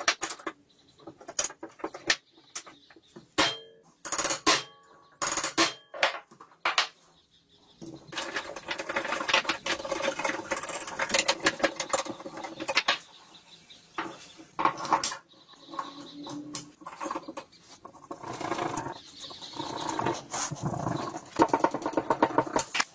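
Metal gun parts clicking and knocking as they are fitted together on a wooden workbench, then from about eight seconds in a dense run of rapid ticks and scrapes as a screwdriver drives screws into the wooden stock.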